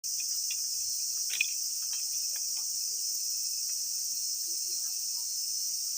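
Steady, high-pitched chorus of crickets, with scattered light clicks and snaps through it, the sharpest about a second and a half in.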